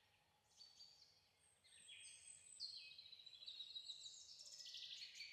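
Faint birdsong: several birds giving high whistled notes and trills, becoming busier after the first second and a half.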